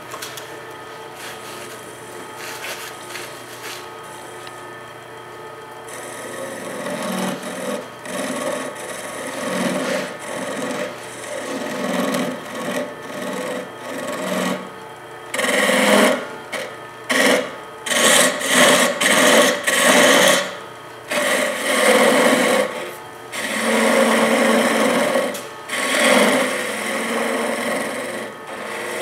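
Spindle gouge cutting a Banksia pod spinning on a wood lathe. The lathe runs steadily at first; from about six seconds in, a run of short, irregular scraping cuts starts, louder in the second half.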